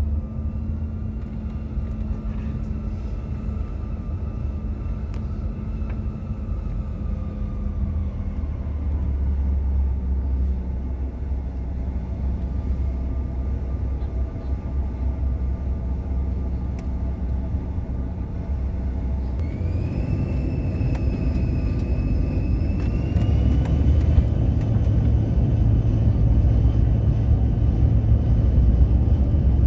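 A CRJ900's rear-mounted General Electric CF34 turbofans heard from inside the cabin during taxi: a steady hum and low rumble with a thin whine. About two-thirds of the way in, a higher whine sets in and rises in pitch twice, and the rumble grows louder as the engines spool up.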